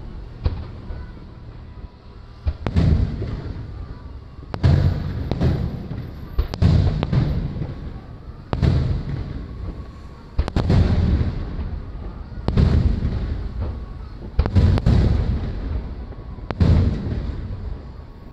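Aerial firework shells bursting overhead: loud bangs about every two seconds, some in quick pairs, each trailing into a low rumble.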